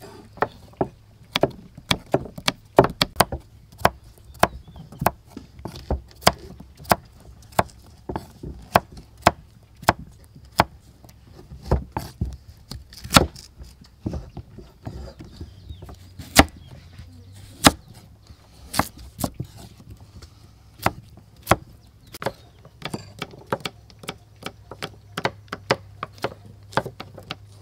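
Knives chopping a firm white vegetable into cubes on wooden chopping blocks: rapid, irregular sharp knocks of the blades striking the wood, several a second, from more than one cutter at once.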